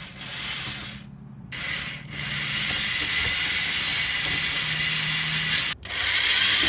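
Corded electric drill boring into a stucco wall: a few short bursts at first, then running steadily under load. It cuts out abruptly for an instant near the end and starts again.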